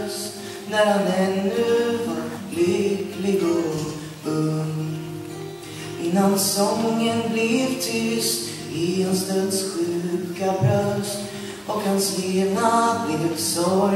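A male singer performing a Swedish song into a microphone, accompanied by an acoustic guitar.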